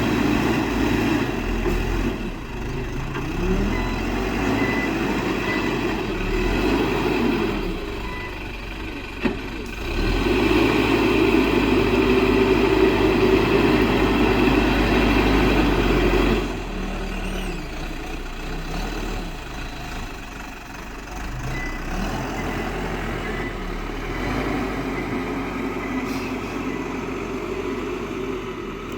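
Heavy diesel construction machinery running, the engine note swelling and easing with load and loudest for several seconds in the middle. There is one sharp knock about nine seconds in.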